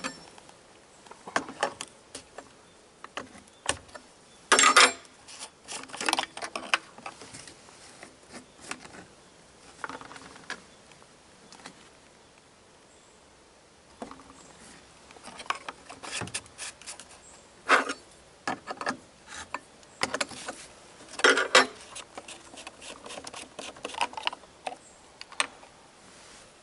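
Scattered clicks, knocks and clatters as a chainsaw is refilled from a plastic fuel canister on a metal tailgate: caps opened, the canister set down and the saw handled. The sounds come irregularly, with a quieter stretch in the middle.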